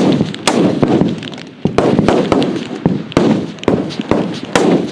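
Many F-Class target rifles firing along a long firing line: loud, overlapping shots at irregular intervals, two or three a second, each trailing an echo.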